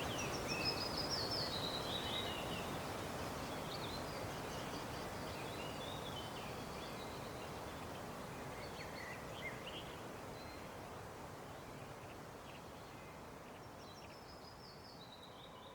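Steady rush of a waterfall with birds chirping and giving short falling trills above it, the whole sound fading out gradually.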